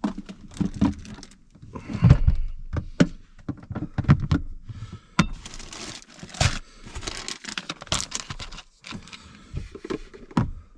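Food being unpacked and set out by hand: a plastic tortilla bag crinkling, with repeated knocks and clatters as cans and a plastic egg carrier are put down.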